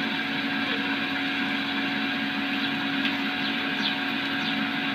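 Steady motor hum over a rushing hiss, with water from a garden hose pouring onto a goat's back and running onto the concrete floor.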